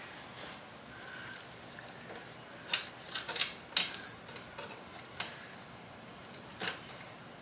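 Scattered light clicks and taps from handling small parts of the scooter's wiring, bunched together a little before the middle, over a steady high-pitched whine.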